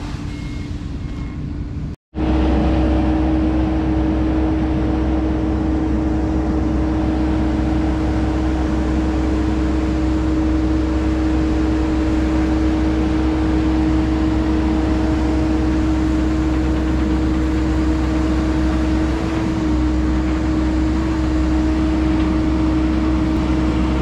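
Heavy equipment's diesel engine running steadily, with a constant whine over a low rumble. It starts abruptly about two seconds in.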